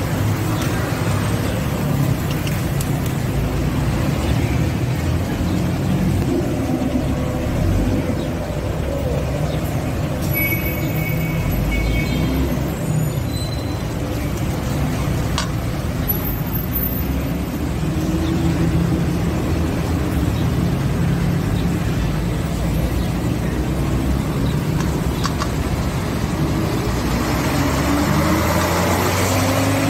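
Steady road-traffic rumble, with the engines of passing vehicles rising and falling now and then.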